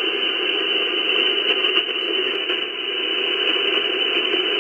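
Steady hiss of band noise from a ham radio transceiver receiving single sideband, heard while standing by after a CQ call. Nothing but noise is on the frequency: no station is answering.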